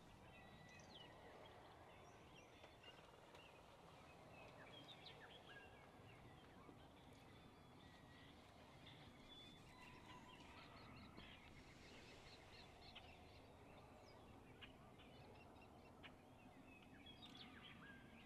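Near silence, with faint scattered chirps and short calls of small birds throughout.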